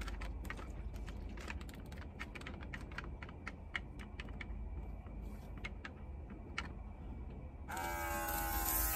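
Irregular small plastic clicks and taps as the bottle is handled and fitted to a handheld nano atomizer disinfectant spray gun. About three-quarters of the way in, the atomizer switches on with a sudden steady electric whine and a loud hiss of spraying mist.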